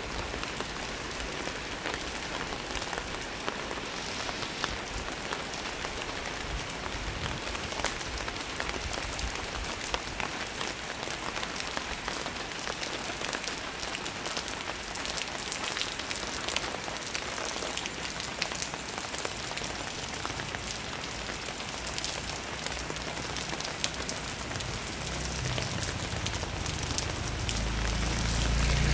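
Light drizzle falling steadily, many small drops ticking on surfaces. A low rumble swells near the end.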